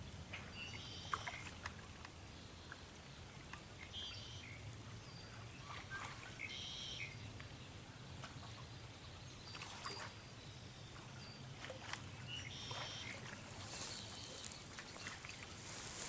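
Outdoor ambience: a steady high-pitched insect drone, with scattered short bird chirps every few seconds. The overall level rises a little near the end.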